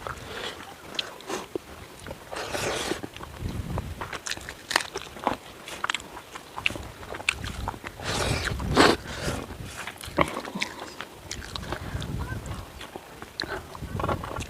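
Close-up eating sounds: a person biting and chewing tandoori chicken, with irregular wet clicks and smacks, and a louder burst of chewing about eight seconds in.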